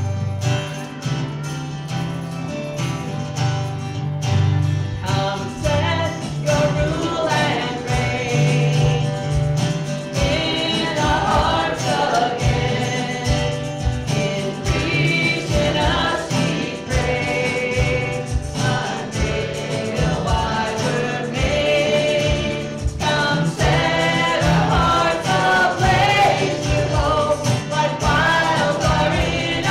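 Worship song: several voices singing over strummed acoustic guitar and a steady bass line, the voices coming in about five seconds in.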